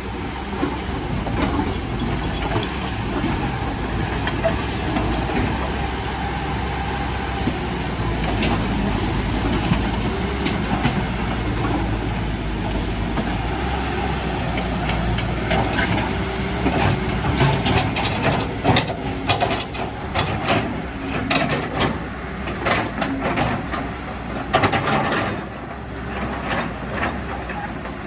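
Caterpillar 312D hydraulic excavator working, its diesel engine running steadily. From about halfway through, frequent sharp metal clanks and knocks join the engine.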